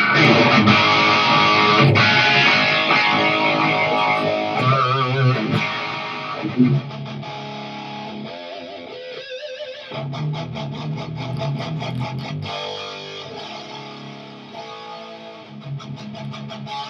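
Distorted electric guitar played through an amplifier stack: loud chords at first, then quieter lead lines with wavering bent notes and a fast-picked run about ten seconds in.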